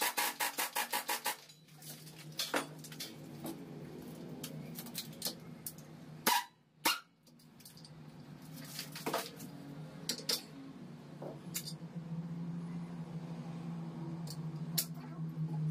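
Pneumatic impact wrench hammering in a rapid rattle on a shock-absorber strut's top nut, stopping about a second and a half in. Then scattered metallic clinks and knocks as the strut and its coil spring are handled in a spring compressor, the loudest about six seconds in, over a steady low hum.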